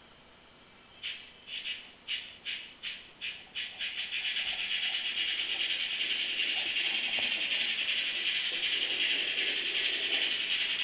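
Heavy-steam exhaust chuff from a Soundtraxx Tsunami TSU-750 sound decoder, played through a small speaker in an N-scale sound car. The chuffs start about a second in, slow and distinct at about two a second, then quicken until they blur into a steady rapid beat as the locomotive gets under way.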